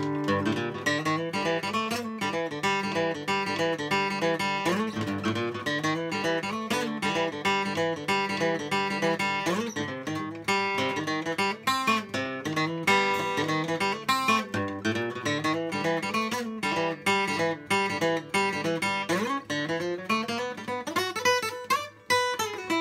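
Solo acoustic guitar playing an instrumental break, a steady run of picked notes and strums with no singing.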